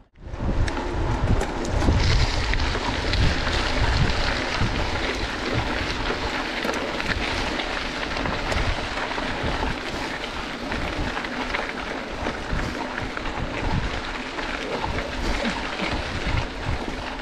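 Wind buffeting the microphone of a camera on a mountain bike riding at speed, over the steady crunch and rattle of the tyres rolling on a gravel forest road, with many small clicks from stones and the bike.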